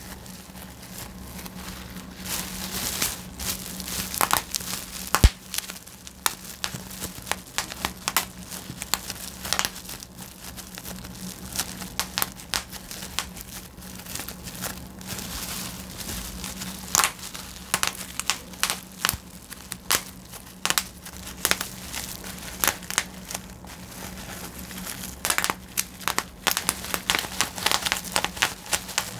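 Bubble wrap being popped by hand: sharp, irregular pops, some in quick runs, over the crinkling of the plastic sheet.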